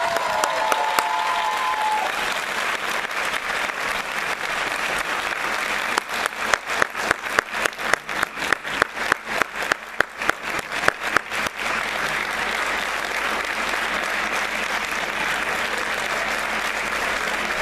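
Audience applauding steadily. From about six seconds in to nearly twelve, one pair of hands claps loudly and close by, at a regular three to four claps a second.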